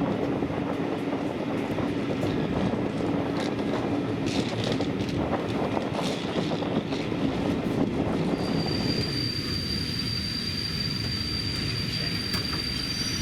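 Railway passenger carriage running on the track, heard from inside as a steady rumble. About two-thirds of the way through the rumble eases and a steady high-pitched wheel squeal sets in.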